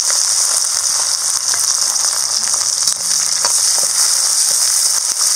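Sliced shallots sizzling in hot oil in a kadai, freshly added over tempered cumin and mustard seeds: a loud, steady frying hiss. A few light clicks come from a perforated ladle stirring them.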